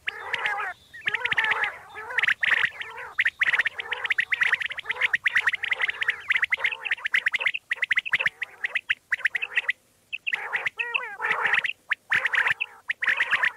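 Recorded common quail calls: dense, rapidly repeated chirping and warbling notes, broken by a few short pauses in the second half.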